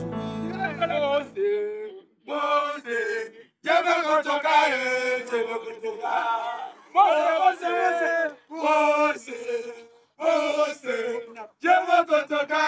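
A group of men chanting in unison in short shouted phrases, with brief pauses between them. Sustained music fades out in the first second or so.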